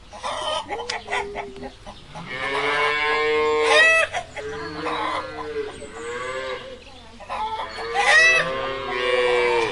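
Farmyard chickens: a rooster crowing twice, each crow a long held call, with hens clucking in between.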